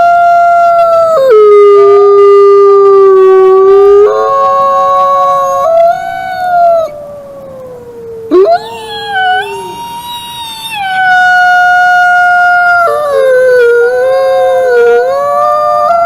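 Wolves howling together: long, held howls from at least two animals overlapping at different pitches, each stepping or sliding between notes. The chorus thins briefly about halfway through, then fresh howls rise and carry on.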